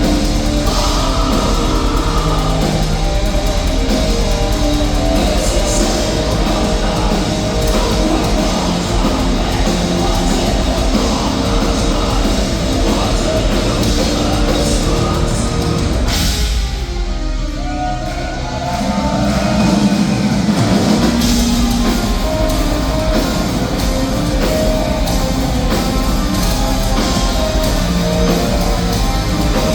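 Heavy metal played by a full band, with distorted electric guitars and a drum kit. A little past halfway the full sound thins out for a couple of seconds, then the band comes back in at full strength.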